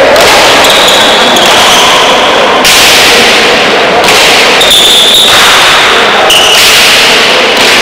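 Pelota ball struck back and forth in a rally, with a sharp hit every second or two ringing out in the echoing frontón hall. The recording is overloaded and stays constantly loud.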